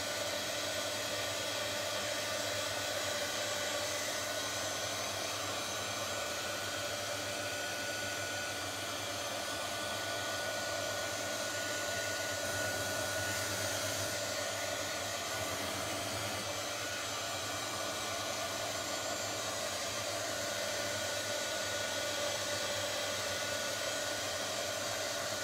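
Handheld heat gun blowing steadily, a constant rushing whir with a steady motor whine, as it fuses a layer of encaustic beeswax to round off its edges.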